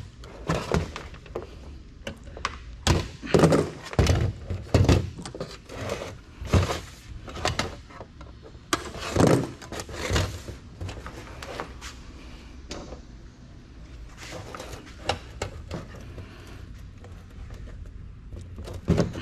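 Irregular knocks, thunks and clatter of computer parts and scrap wire being handled on a workbench and tossed into scrap bins. Some knocks come in quick clusters, with quieter handling between them.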